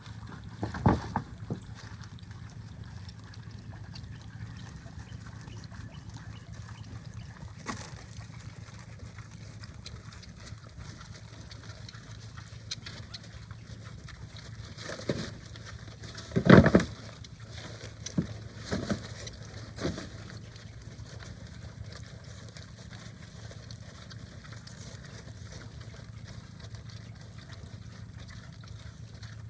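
Hungry Duroc pigs making a few short grunts and squeals over a steady low hum. There is a pair near the start, and a cluster about halfway through that holds the loudest call.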